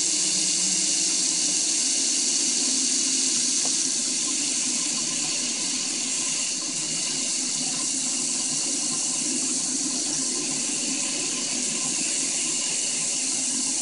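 Faucet running steadily, a stream of tap water splashing onto a painted test panel in a stainless steel sink.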